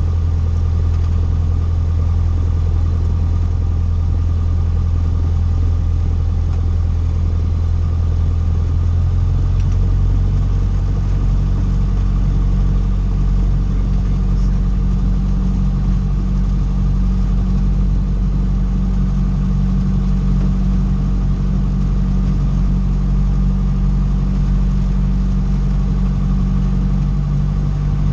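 Cessna 150's four-cylinder Continental O-200 engine and propeller running steadily. The engine note changes about nine seconds in and again near the end, with a change of power setting.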